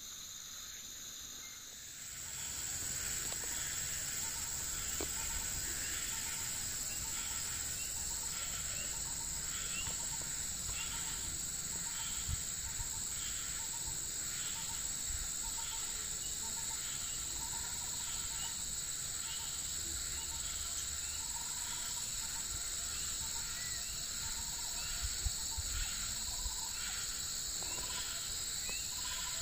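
A tropical insect chorus: a continuous high-pitched trill with a second insect call pulsing about once a second beneath it. It gets louder about two seconds in.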